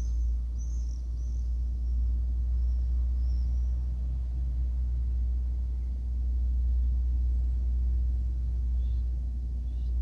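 Steady low wind rumble on the microphone, with small birds chirping high above it in the first few seconds and again briefly near the end.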